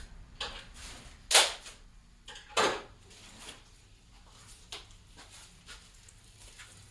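Packaging of new engine bearings being cut open, with two loud, short rips about a second apart and quieter rustling and handling around them.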